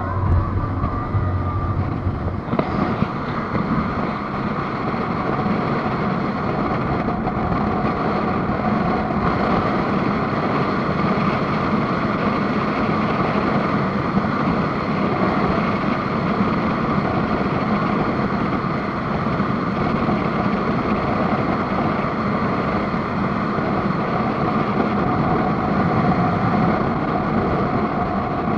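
Speedboat engine running steadily at speed, heard as a loud, continuous drone over a dense rushing noise.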